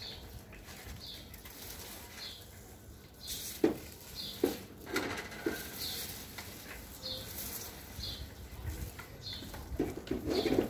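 A bird repeating a short, high chirp about once a second, with a few soft knocks in between and a louder patch of sound near the end.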